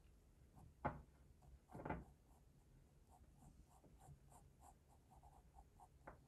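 Graphite pencil scratching faintly on drawing paper as an eye is sketched, with a quick run of short, repeated strokes in the second half. A sharper tap comes about a second in and a louder rub about two seconds in.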